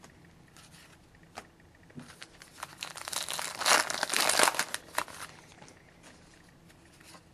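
Plastic wrapper of a hockey card pack being torn open and crinkled: a dense crackling burst starting about two and a half seconds in and lasting about two and a half seconds, after a few light clicks.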